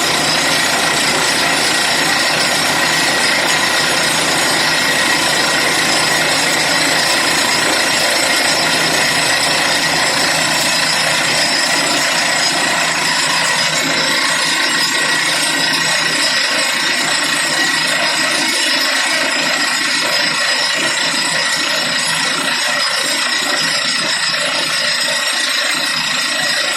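Borewell drilling rig running and drilling: loud, steady mechanical noise with a constant high whine, easing slightly after the middle.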